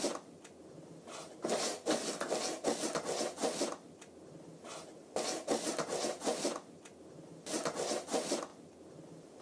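Sound effect of rapid scratching and scribbling, like a pencil sketching, in three bursts of one to two seconds with quieter gaps between.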